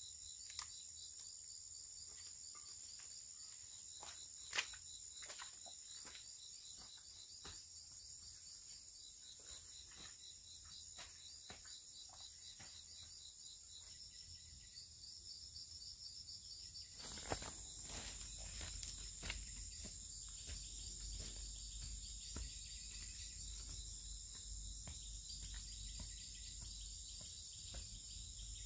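Several insects trilling steadily at high pitch, one with a fast pulsing rhythm, over scattered light snaps and rustles of vegetation, with one sharp snap between four and five seconds in. Past the middle a low rumble and more crackling join in.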